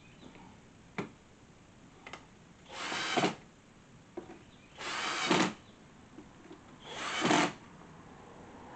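Power drill run in three short bursts of under a second each, about two seconds apart, with a sharp click about a second in.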